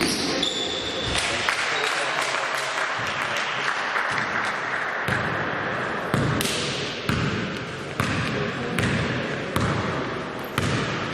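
A basketball being dribbled on an indoor court, the bounces coming roughly one a second and most distinct in the second half, over voices in the hall.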